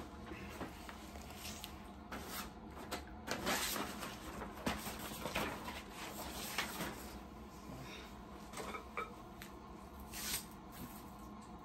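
Irregular rustling and light knocks as paper and a shirt are handled, with a few louder rustles in the middle and one near the end.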